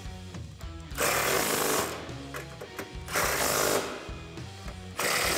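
Impact wrench running strut-mount nuts down onto the strut tower in three short bursts of about a second each, the last near the end. Background music plays underneath.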